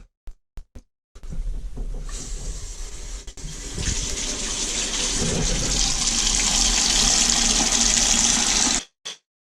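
A few short clicks, then water hissing into an emptied toilet tank through the fill valve as the supply is turned back on, growing louder about four seconds in. It cuts off suddenly near the end.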